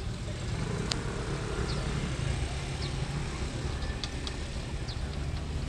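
Low steady engine rumble, with a sharp click about a second in and a few short high chirps.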